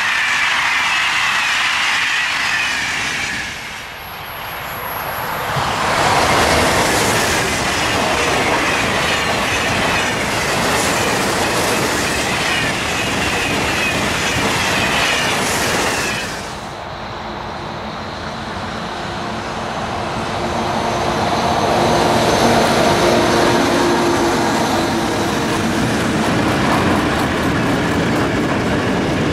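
Trains passing at speed on an electrified line, in three edited takes. First the last Corail coaches roll past with a hissing rush. About five seconds in, a TGV high-speed train sweeps by with a wide rushing noise. After a cut near the middle, an electric locomotive hauling car-carrier wagons approaches with a steady whine of several tones, and the wagons roll past.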